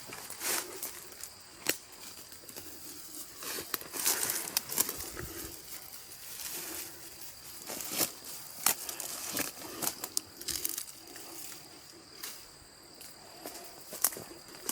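Irregular crunching and rustling of dry leaves and chestnut burrs during chestnut picking by hand, with scattered sharp clicks.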